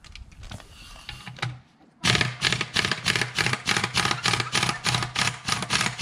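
Cordless impact wrench hammering on a wheel nut, a rapid pulsing rattle that starts about two seconds in after some light handling of the socket. The nut does not break free, so the wrench backs the whole stud out with the nut still on it.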